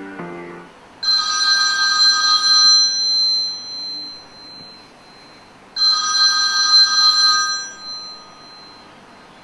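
Mobile phone ringing: two rings of about two seconds each, a few seconds apart, each a bright chord of steady tones that dies away.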